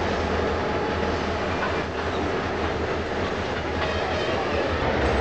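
A freight train passing at close range. The trailing EMD GP38-series diesel locomotive goes by with its engine running, followed by a tank car, over a steady noise of wheels on rail.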